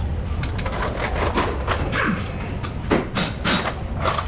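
Irregular knocks and clicks of hand tools at work on a car's strut assembly, about one every half second to second, over a steady low hum.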